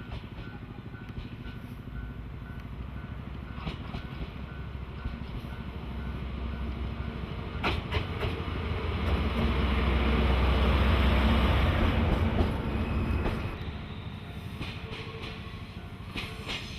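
A DE10 diesel-hydraulic locomotive passes by: its engine drone builds to its loudest about two-thirds of the way through, then fades. A few sharp clacks of wheels over rail joints come through.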